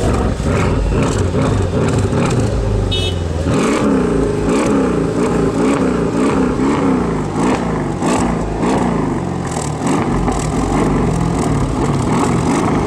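Tuned Mercedes-Benz CLS63 AMG twin-turbo V8 running through its exhaust. It holds steady for the first few seconds, then is revved over and over, rising and falling about one and a half times a second.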